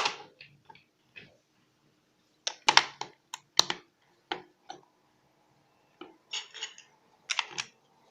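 Plastic clicks and taps from an Xbox One controller being handled, in irregular clusters of short sharp clicks.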